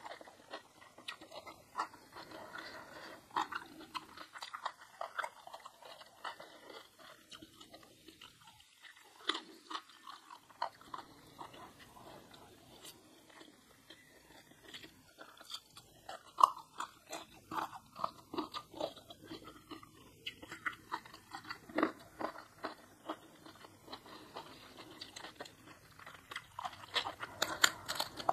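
Close-miked chewing and crunching of food: irregular crisp bites and mouth clicks, with quieter pauses now and then and a dense run of crunches near the end.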